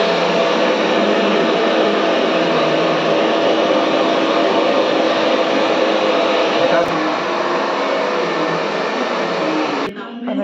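Steady, loud whir of an electric appliance motor with a low hum in it. It cuts off abruptly about ten seconds in, and there is a single faint click a few seconds before that.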